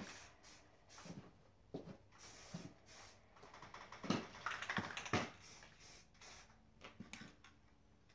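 Aerosol spray-paint can hissing in short bursts as a coat goes on, the longest burst about four to five seconds in, with a few light clicks and knocks between.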